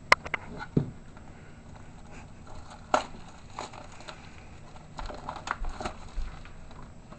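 Baseball card packs and cards being handled on a table: scattered light clicks and crinkling rustles as a pack is taken out of its box and turned over in the hands.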